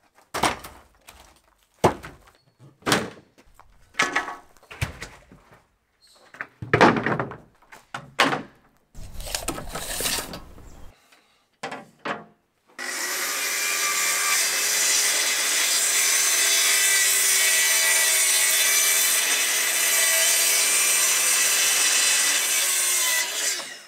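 A run of wooden knocks and scrapes as a pallet, a sheet of board and a saw guide rail are handled and set down. About thirteen seconds in, a plunge-cut track saw starts, running steadily along its guide rail through the sheet of board for about ten seconds before it stops just before the end.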